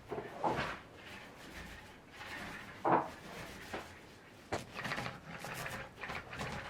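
Household handling noises from tidying: things being moved and set down, with several short knocks and rubbing, the sharpest knock about three seconds in.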